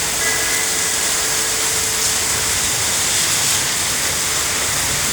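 Rain falling steadily on a roof, an even hiss with no breaks.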